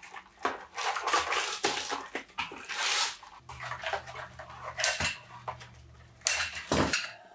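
Cardboard packaging rustled, scraped and worked open by hand on a workbench, with a sharp knock about five seconds in.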